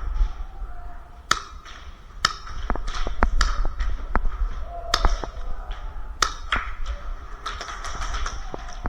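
Airsoft skirmish gunfire: irregularly spaced sharp cracks and taps from shots and BB hits, over a low rumble.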